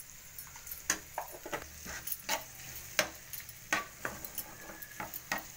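Steel spoon scraping and clicking against a frying pan as chopped onion and capsicum are stirred, in irregular strokes about two or three a second, over a faint sizzle of frying.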